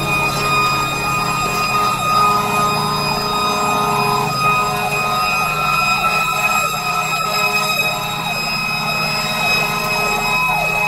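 Fire engine siren yelping in quick up-and-down sweeps about twice a second, heard from inside the cab while the truck runs to a call. A steady high whine and the deep blare of the truck's air horn come and go underneath.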